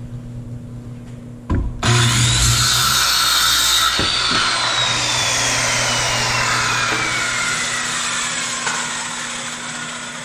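Corded circular saw started about two seconds in and cutting through the end of a wooden board, then the blade coasting down with a slowly falling whine that fades toward the end.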